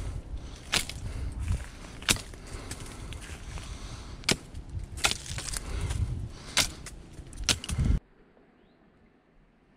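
Sharp cracks and knocks of a hand tool chopping branches off a scrub oak, about seven strikes at uneven intervals. The sound cuts off suddenly about eight seconds in, leaving near silence.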